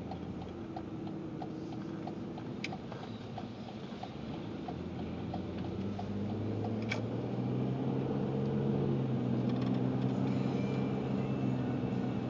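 Car interior while driving: a turn signal clicks about two to three times a second for the first few seconds over engine and tyre noise on a wet road. From about six seconds in the engine hum grows louder as the car speeds up.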